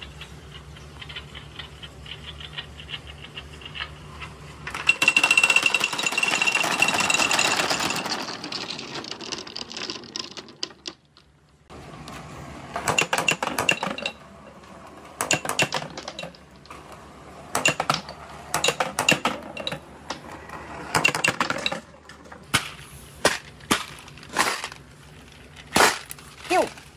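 Balls rolling and rattling down a long clear plastic marble-run tube in one dense, continuous run. After a short silence comes a string of separate sharp clacks and knocks as single balls drop out and strike the track and each other.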